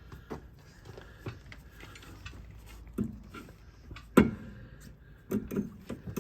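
Irregular metallic clicks and knocks of a screwdriver prying an old rear brake pad out of the caliper bracket, with one sharp knock about four seconds in.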